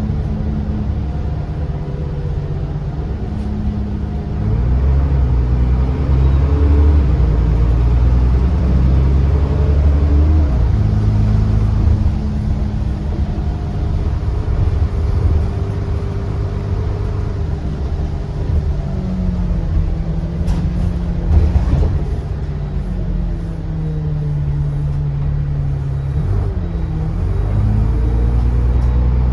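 Diesel bus engine and automatic gearbox heard from on board, the engine note rising and falling as the bus pulls away, changes gear and slows. A few sharp knocks come about two-thirds of the way through.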